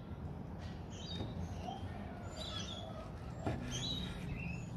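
Birds chirping in short high calls every second or so in the background, while a chef's knife slices through a roast chicken roll on a wooden chopping board, with a soft knock of the blade about three and a half seconds in.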